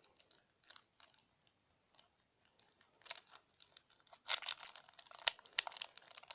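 Crinkling and rustling of a foil trading-card booster pack wrapper being handled and pulled open, with a few sharp clicks. It is faint at first and loudest after about four seconds.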